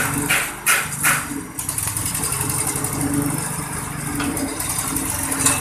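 Coconut husk peeling machine running steadily while its rollers strip the fibrous husk from a coconut, with three short loud scraping bursts in the first second and a half and another near the end.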